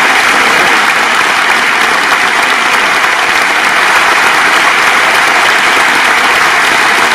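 Concert audience applauding, a dense, steady clapping that holds even throughout.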